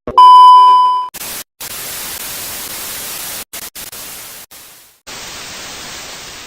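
A loud steady electronic beep for about a second, then static hiss with a few brief dropouts.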